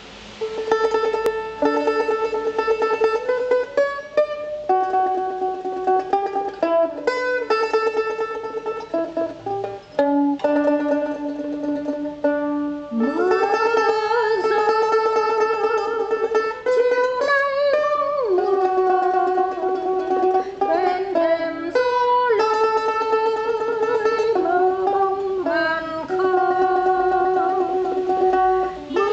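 A plucked string instrument playing a slow melody with rapid tremolo picking and a few smooth upward bends in pitch.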